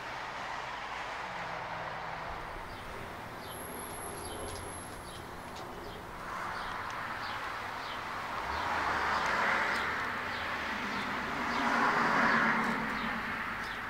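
Steady outdoor background rumble and hiss with no speech, growing louder twice in the second half.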